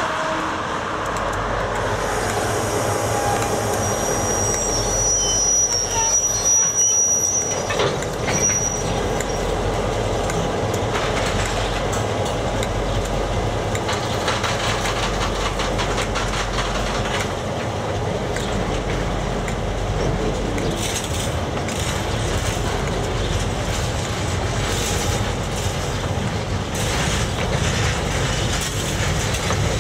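KiwiRail DC-class diesel-electric locomotives and a freight train going by, with a steady low engine rumble. A thin high wheel squeal sounds from about four to nine seconds in, and later the wheels clack repeatedly over the rail joints.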